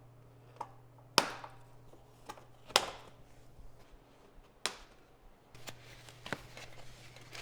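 Side cutters snipping the zip ties that hold the packaging on a folding e-bike: three sharp snaps, about one and a half to two seconds apart, with softer clicks and handling between.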